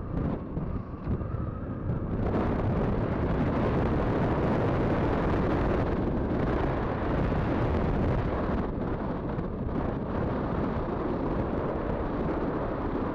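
Wind buffeting the microphone of a camera on a moving motorcycle, over the motorcycle's engine running at road speed. The rush gets louder about two seconds in as the bike speeds up, then eases a little near the end as it slows.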